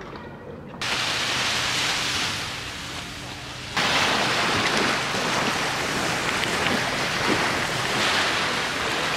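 Small waves washing onto a sandy beach, with wind buffeting the microphone. It comes in about a second in and gets louder a little before the halfway point.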